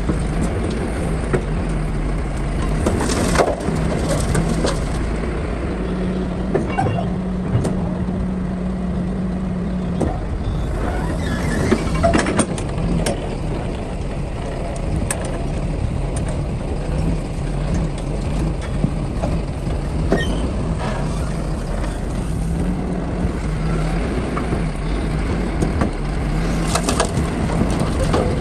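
Excavator's diesel engine running steadily with a low hum, with a few short knocks and clatters from the earthmoving work.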